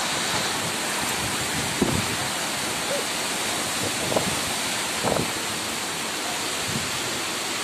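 Heavy tropical downpour with strong wind: a dense, steady hiss of pouring rain, broken by a few faint knocks.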